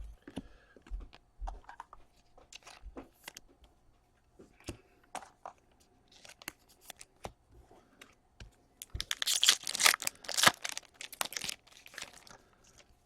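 Trading cards and plastic packaging being handled at close range: scattered light taps and clicks, then a few seconds of crinkling and rustling about nine seconds in.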